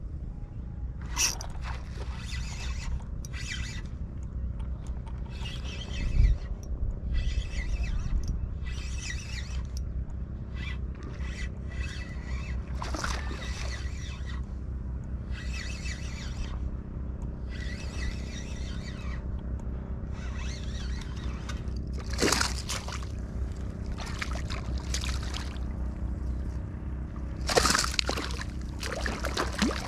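A hooked fish being played and landed from the bank: a run of short bursts of reel and line noise about once a second, with the fish splashing in the shallows, loudest about two-thirds through and again near the end. Steady wind rumble on the microphone lies under it all.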